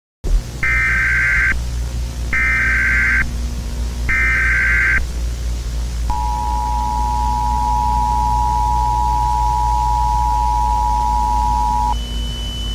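Emergency Alert System tones over a steady low hum. First come three short bursts of digital data noise (the SAME header), under a second each and about a second apart. Then the two-tone attention signal sounds as one steady dual-pitched tone for about six seconds, and near the end a single higher steady tone begins.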